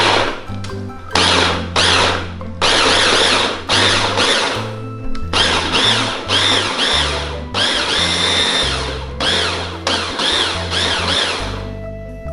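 Electric hand mixer running in repeated bursts, switched on and off several times and then left running for several seconds, whining as it beats sugar into the batter; it stops near the end.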